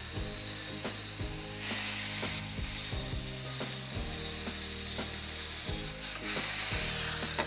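Angle grinder with a thin cutting disc slicing through a steel channel. Its cut is a harsh hiss that swells about two seconds in and again near the end. Background music with a steady beat plays over it.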